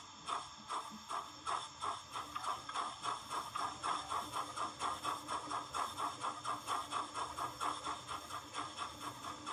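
Sound-decoder steam exhaust chuffs from a Bachmann OO gauge Caledonian Railway Class 812 model locomotive, played through its small onboard speaker as it runs. The even chuffs quicken from about two to about five a second over the first few seconds as the loco gathers speed, with a faint steady hum underneath.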